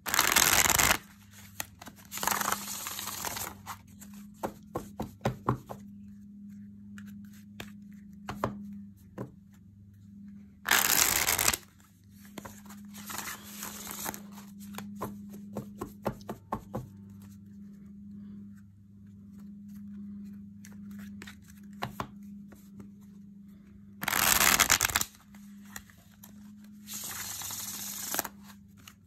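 A deck of cards being shuffled by hand. Three loud riffles of about a second each come near the start, about eleven seconds in and about twenty-four seconds in. Each is followed by softer shuffling, with scattered taps and clicks of the cards between.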